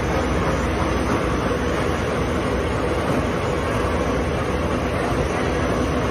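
Automatic non-woven bed sheet folding machine running, a steady, even mechanical running noise from its rollers, folding gear and conveyor.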